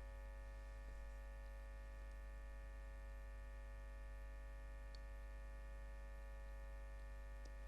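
Steady low hum with a stack of unchanging tones above it, and one faint tick about five seconds in; no sneeze yet.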